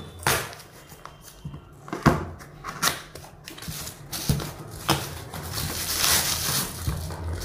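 A small cardboard shipping box being handled and pried open by hand, with several sharp knocks and crinkles of the cardboard. About two-thirds of the way in comes a longer rustle of plastic packaging as the wrapped item inside is pulled out.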